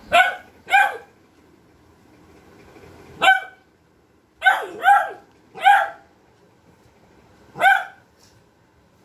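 Beagle puppy barking: seven sharp barks, two at the start, one about three seconds in, three in quick succession around the middle, and a last one near the end.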